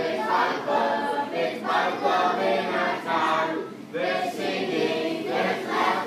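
A group of voices singing a song together.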